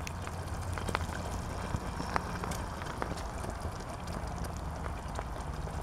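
Tomato soup heating in a small saucepan over a BCB solid-fuel block stove, coming up to a simmer with scattered soft pops and ticks, over a steady low rumble.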